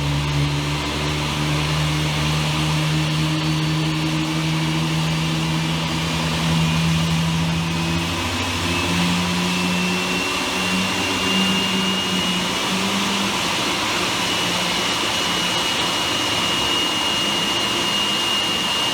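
Jet airliner engines at takeoff power, a loud steady rush. A high whine comes in about halfway, rises slightly and then holds, while the low hum fades away.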